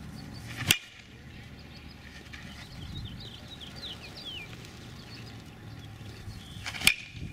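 Two sharp cracks of a bat hitting a baseball, about six seconds apart, the second with a brief ringing ping. Birds chirp in between.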